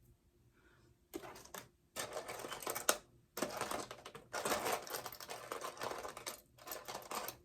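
Wig hair rustling and scratching as it is handled and adjusted, in several dense crackling bursts with short pauses between them.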